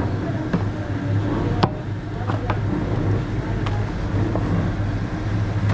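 Steady low drone of workshop machinery from a plastic jerry-can blow-moulding machine. It is broken by a few sharp clicks and knocks as a freshly moulded plastic can is handled, the loudest a little under two seconds in.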